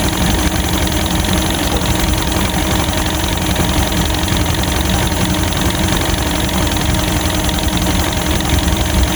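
Boat engine idling steadily, a constant low drone that runs evenly throughout.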